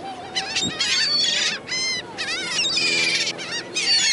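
A flock of gulls calling, many harsh squawks overlapping one another.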